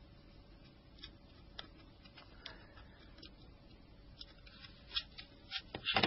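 Faint scattered clicks and light scrapes of small metal tools working on the plastic and metal parts of a Nokia N-Gage phone during disassembly, with a few sharper clicks near the end.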